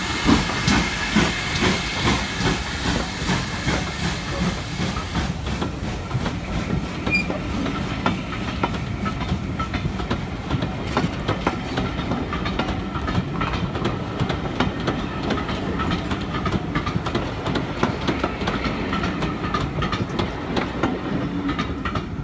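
GWR Manor class 4-6-0 steam locomotive No. 7822 passing with its exhaust chuffing in quick beats and steam hissing, fading within the first couple of seconds. Then its coaches roll by with a steady rumble and clicking of wheels over rail joints.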